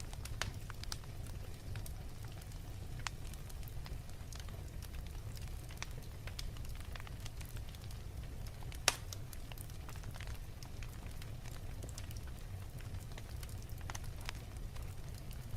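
Wood fire in a fireplace crackling, with irregular small pops over a steady low rumble and one louder pop about nine seconds in.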